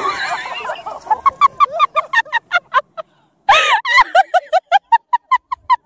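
Hard, high-pitched cackling laughter in a rapid run of short bursts, about five a second, broken by a brief pause and a loud whooping laugh about three and a half seconds in.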